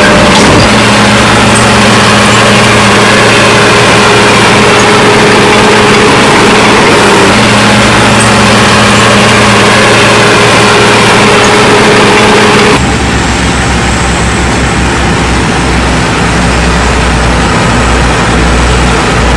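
Heavy diesel engine of earthmoving machinery running loud and steady with a constant hum; about thirteen seconds in the sound cuts abruptly to a deeper, throbbing engine.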